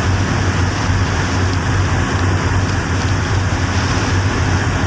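Steady low engine rumble with a constant hum, mixed with wind noise.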